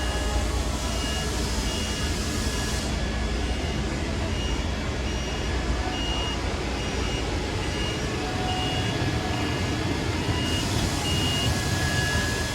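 Machine-shop running noise with a steady low hum, broken by a short high electronic beep that repeats about every 0.8 s, like a warning beeper.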